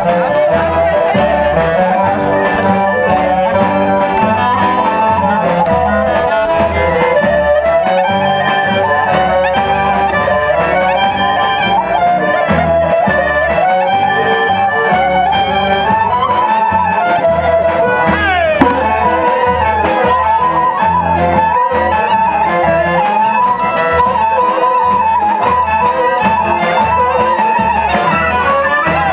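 Bulgarian folk band playing a dance tune: accordions and wind instruments carry the melody over a steady bass beat from the double bass.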